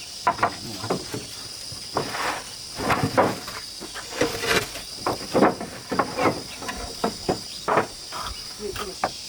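Insects droning steadily at a high pitch under a run of irregular knocks and clatters.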